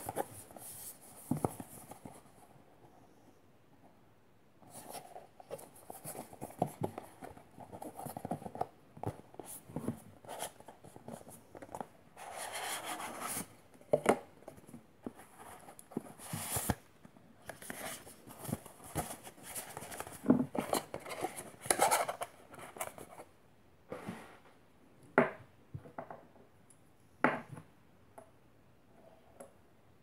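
Unboxing a small cardboard gift box by hand: scraping and rustling as the box is turned and slid open, with scattered sharp clicks and taps, and one longer scrape about halfway through. A small metal fidget toy is lifted from its foam insert and set down on a wooden table.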